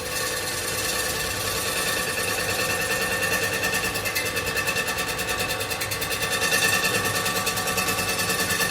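A power tool working on a metal wheel rim, running continuously with steady whining tones and a fast, even pulsing.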